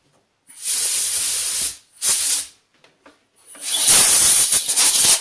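Compressed-air blow gun hissing in three blasts, a short one in between two longer ones, blowing metal chips out of a freshly tapped hole.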